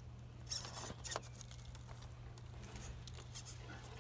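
RC rock crawler climbing slowly over granite boulders: tyres and chassis scraping and clicking on the rock, with two sharp knocks about half a second and a second in.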